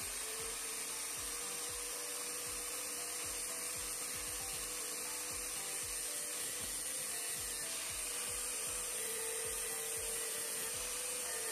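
Makita 100 mm angle grinder running steadily at full speed, a homemade cardboard disc faced with sandpaper pads spinning on it. At times the disc is pressed against a steel wrench, grinding it and throwing sparks.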